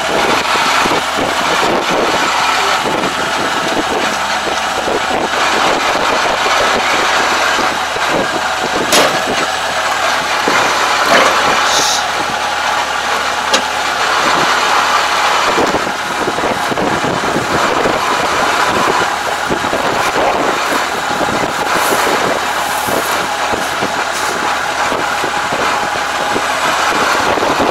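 Kubota combine harvester running steadily, with straw rustling and scattered crackles as jammed rice straw is pulled by hand from its clogged rear straw cutter.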